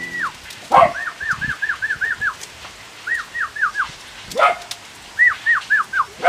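Animal calls: runs of quick, high, arched chirps, four to six at a time at about five a second, broken by three louder, rising yelp-like calls.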